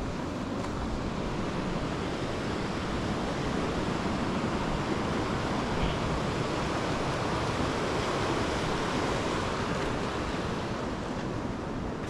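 Steady rush of flowing water, an even noise with no breaks.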